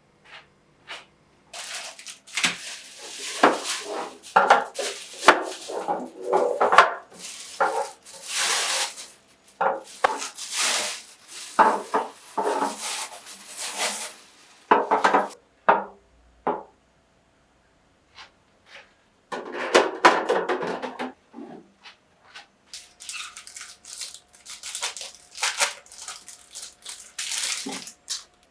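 Kitchen handling sounds: containers and dishes knocking and clattering as they are set down and moved, mixed with stretches of rustling and scraping, with a short lull about two-thirds of the way through.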